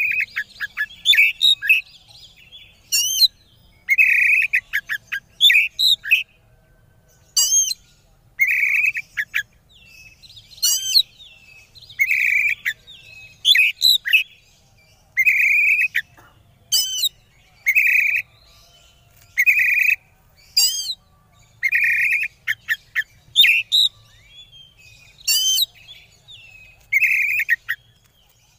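Male oriental magpie-robin (kacer) singing in an excited bout of short, loud phrases of harsh notes and sweeping whistles, repeated about every second or two. This is the kind of agitated song that keepers play to provoke rival males.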